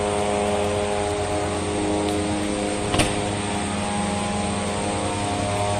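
Steady machine drone at a constant pitch, with one sharp click about three seconds in.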